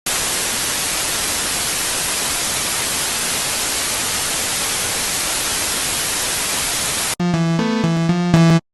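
Steady white-noise static for about seven seconds, then an abrupt cut to synthesizer music with a low bass line and stepping notes, which drops out briefly just before the end.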